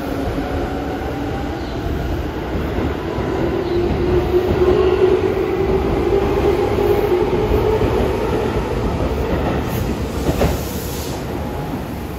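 Tobu 10030 series electric train pulling out of the station, accelerating: a steady rumble of wheels on rail under a motor whine that rises in pitch. One sharp click comes near the end.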